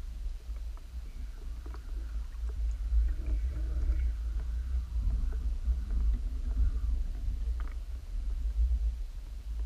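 Muffled underwater rumble picked up by a camera submerged in a lake, with faint clicks and a swish of moving water that swells in the middle few seconds.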